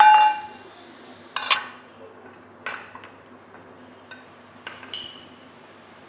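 A spoon striking and stirring in a small metal pot: one loud ringing clang at the start, then a few lighter clinks and knocks about a second apart.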